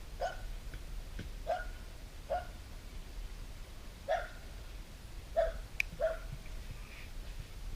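Six short, sharp animal calls, spaced irregularly a second or so apart.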